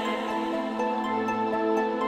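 Soft background music: sustained chords with the notes shifting every half second or so, and faint light ticks in the upper range from about a second in.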